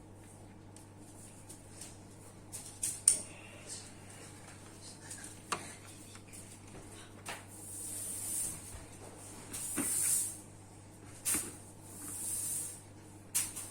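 Scattered sharp clicks and knocks, like parts being handled, with a few soft hissing swells, over a steady low hum.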